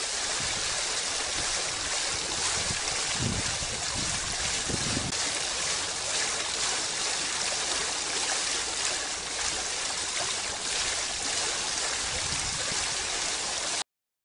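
Fountain water splashing and trickling steadily, then cutting off abruptly near the end.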